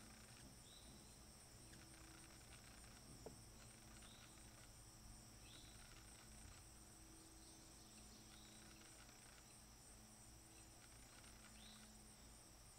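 Near silence with a faint, steady high-pitched insect chorus and short chirps repeating every second or two; a single small click about three seconds in.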